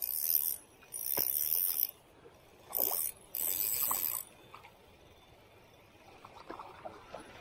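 Shimano Vanquish 2500S spinning reel cranked in four short bursts, its rotor and line giving a high hiss, as a wobbler is twitched in, with a single click about a second in. The last few seconds hold only faint small ticks.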